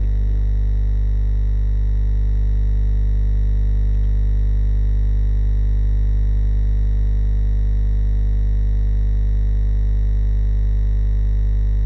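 Loud, steady electrical hum and buzz: mains hum with its evenly spaced overtones, unchanging throughout.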